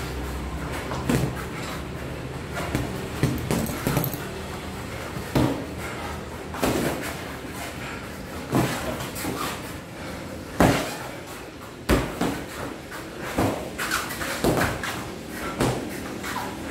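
Boxing gloves striking gloves, arms and headgear in sparring: irregular thuds and slaps, with two sharper, louder hits about two-thirds of the way through.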